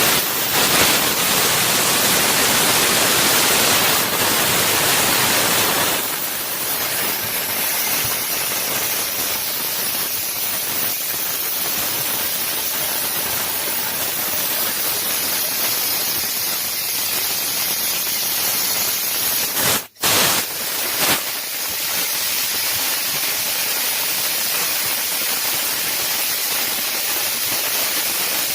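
Fiber laser cutting head with its assist gas jet blowing through the nozzle during cutting, making a loud, steady hiss. The hiss is slightly louder for the first six seconds, cuts out for a fraction of a second about twenty seconds in, then resumes.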